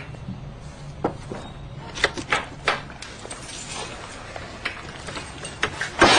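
A few sharp knocks and clicks, then a sudden loud crash right at the end.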